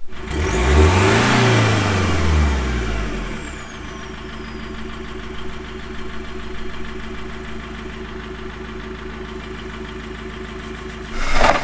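Iveco Daily turbodiesel engine revved once, with a high whistle falling away as the revs drop, then settling into a steady idle. The engine is burning oil, which the owner puts down to a failing turbo. A brief loud noise comes near the end.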